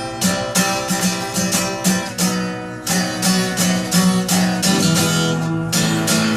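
Acoustic guitar strummed without singing, an instrumental break in a folk song, at roughly three strokes a second. A chord is left ringing for a moment about two and a half seconds in and again about five seconds in, then the strumming picks up.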